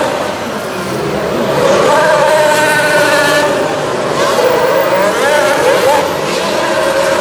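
Formula One cars' 1.6-litre turbocharged V6 hybrid engines passing one after another on the straight, their pitch rising and falling as each goes by.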